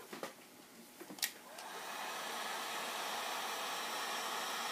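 A few light clicks and knocks, then a handheld electric heat gun is switched on about a second and a half in and runs with a steady blowing rush of air.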